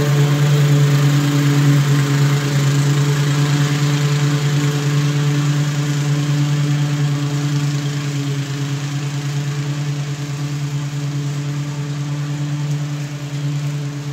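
Walk-behind gas lawn mower engine running steadily while mowing grass, growing gradually fainter as the mower moves away.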